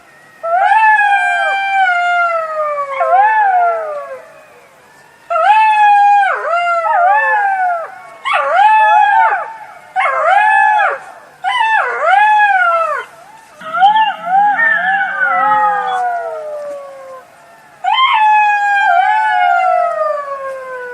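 Jackals howling: wailing calls that rise and then slide down in pitch, mixed with quick yipping cries, in about seven bursts separated by short pauses. In one burst past the middle, a lower rough sound runs under the calls.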